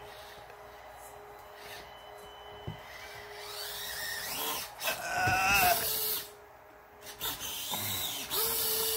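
Small electric motor and gear train of a 1:24-scale Axial SCX24 RC crawler whining as it is throttled, the pitch rising and falling in spurts. It gets louder from about halfway through, drops away briefly, then revs again near the end.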